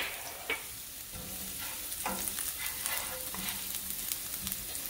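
Minced garlic sizzling in hot oil in a nonstick frying pan, stirred with a wooden spatula that scrapes and knocks against the pan a few times.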